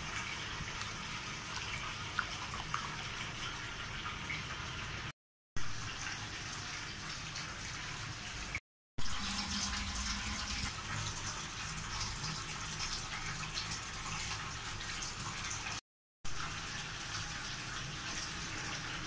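Rice and water boiling in a pot on the stove: a steady bubbling hiss, broken by three short gaps of total silence.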